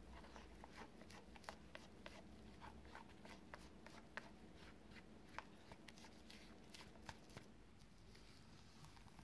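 Faint, irregular soft clicks and wet patter of sponge-cake batter being poured into a glass mixing bowl and folded in with a spatula; the clicks thin out about seven and a half seconds in.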